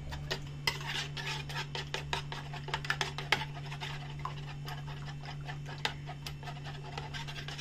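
Raw eggs being beaten with a metal spoon in a ceramic bowl: quick, irregular clinks and scrapes of the spoon against the bowl, over a steady low hum.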